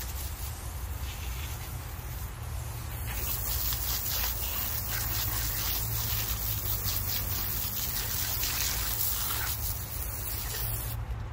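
Garden hose pistol-grip nozzle spraying a fine jet of water over a gutted white bass on a cutting board, a steady hiss with water spattering. The spray grows stronger about three seconds in and shuts off near the end.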